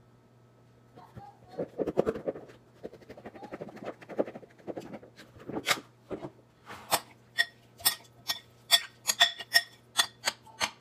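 Feta crumbles shaken out of a plastic tub into a glass bowl, an irregular rustling patter. From about seven seconds in, a metal spoon tosses the salad in a glass mixing bowl, striking the glass about twice a second with a ringing clink.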